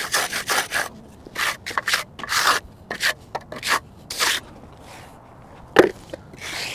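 Magnesium trowel scraping over the wet surface of a fresh concrete pad, first in quick back-and-forth strokes, then in slower separate sweeps. A sharp knock sounds near the end.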